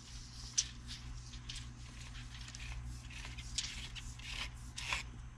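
Faint, irregular scrapes of a shovel working loose dirt, about ten in a few seconds, over a steady low hum.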